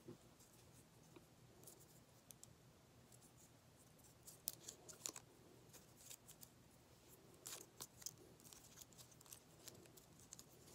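Faint crackles and sharp little clicks of packaging being handled as a USB-C to Lightning charging cable is taken out and unwrapped. The clicks come in small clusters about four and seven and a half seconds in, with near silence between.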